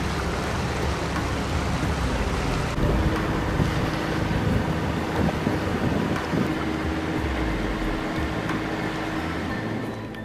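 Wind buffeting the microphone and water washing past the hull of a sailing yacht under way, over a steady low hum; it fades near the end.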